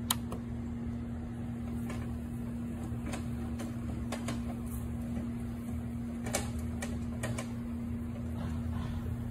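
Robot lawnmower running across the lawn: a steady low machine hum with a few light clicks scattered through it.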